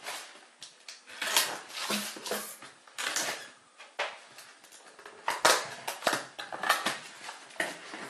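Serrated kitchen knife cutting and scraping through the packing tape and cardboard of a small box, in a series of short, irregular scraping strokes, with cardboard being handled as the flaps are worked open.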